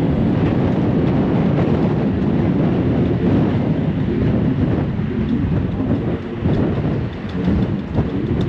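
Strong wind buffeting the microphone on the open bow deck of a moving river passenger ship, a loud, steady low rumble that eases slightly a couple of times near the end.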